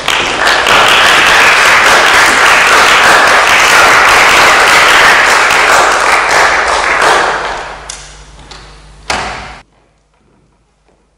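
Audience applauding: dense clapping that thins out about eight seconds in, with a last short burst that cuts off suddenly.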